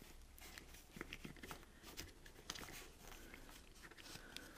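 Near silence, with a few faint scattered clicks and rustles from gloved hands fitting a rubber protective cover over a wiring connector.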